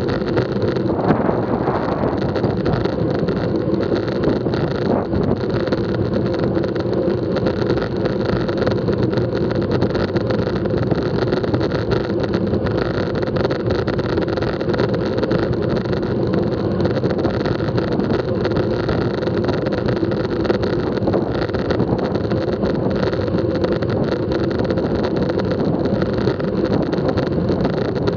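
Steady rush of wind across the microphone of a bike-mounted action camera, mixed with the hum of road-bike tyres rolling on a concrete road at speed.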